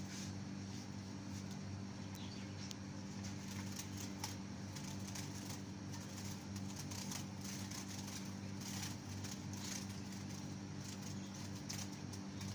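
Zebra finches giving many short, sharp calls and fluttering their wings, over a steady low hum.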